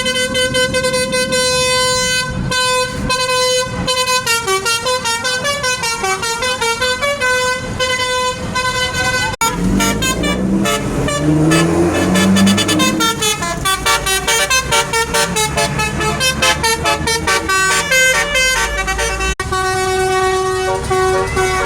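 Bus 'telolet' musical air horns playing quick tunes of bright stepped notes, in three stretches with abrupt cuts between them, about a third and two thirds of the way through. A low rumble runs beneath the middle stretch.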